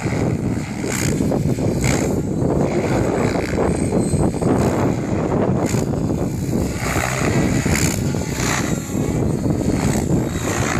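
Compass 700 radio-controlled helicopter in flight, its rotor noise swelling briefly several times as it manoeuvres, over a steady low rumble of wind on the microphone.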